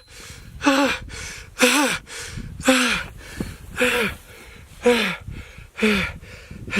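Two-stroke chainsaw being pull-started: the starter rope is yanked about once a second, seven times. Each pull is a short whir that rises briefly and falls away as the engine turns over without firing, an engine thought probably flooded.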